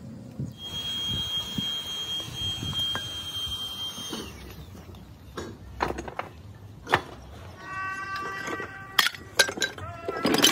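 Chunks of cast iron scrap clanking against metal as they are handled and dropped, with several sharp knocks and some ringing in the second half. A steady high whine runs through the first few seconds.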